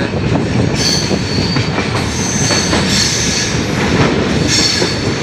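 Train running on the rails, heard from aboard: a steady rumble of wheels and coaches, with high-pitched wheel squeal coming and going from about a second in.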